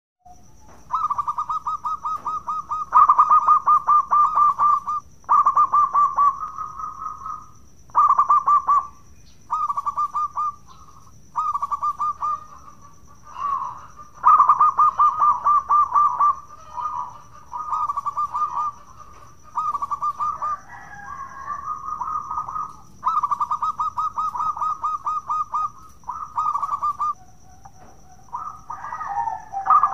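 Zebra dove (perkutut) cooing: phrase after phrase of rapid rolling coos, each a second or two long, with short breaks between.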